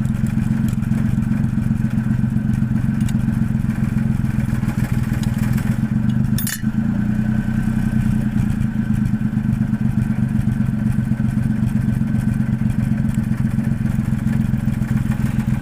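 Mitsubishi Fuso 6M70 inline-six diesel engine running at a steady speed. There is a brief sharp knock about six and a half seconds in.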